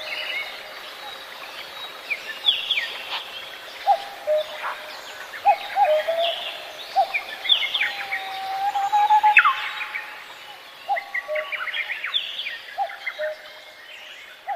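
Several birds chirping and calling: many quick, high, falling chirps over lower whistled notes and short held tones, at irregular intervals.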